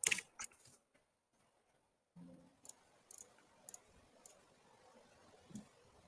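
Computer mouse clicks: a quick cluster at the start, then a short stretch of dead silence, then single clicks about half a second apart, with a soft thump near the end.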